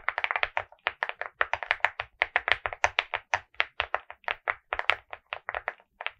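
Fast typing on a Hi75 mechanical keyboard with Akko CS Piano switches and Mocoo cake keycaps: a quick, uneven run of key clicks, each with a light thud under it, giving the deep sound this board is known to its owner for.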